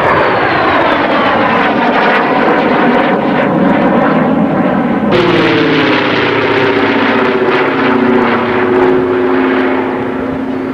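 A jet aircraft passing overhead, its whine falling in pitch. About halfway through it cuts to a Douglas A-26 Invader's two radial piston engines running steadily with a low, even hum.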